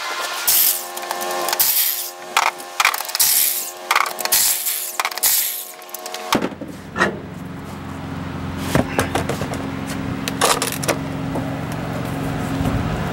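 Sharp metal knocks and clanks of hand tools working on a truck's rear drum brake for about six seconds, then a sudden change to a steady low hum with a few scattered knocks.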